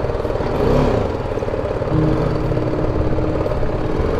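BMW G310 GS single-cylinder motorcycle engine running as the bike rides along, with a brief rise and fall in engine pitch about a second in.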